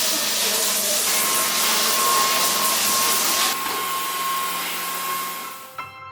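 A motor-driven machine blowing air with a steady loud rush and a thin high whine, easing off a little midway and stopping near the end.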